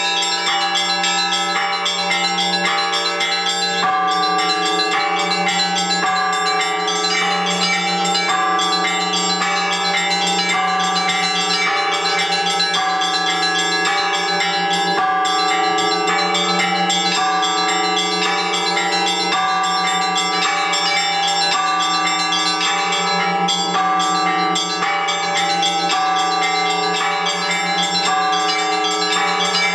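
Russian Orthodox church bells rung together in a continuous full peal: several smaller bells struck in quick, repeating patterns over a steady deep bell tone.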